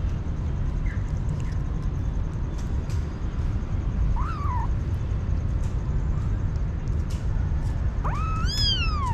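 Kitten meowing: a short faint meow about four seconds in, then a longer, louder meow near the end that rises and falls in pitch. A steady low rumble runs underneath.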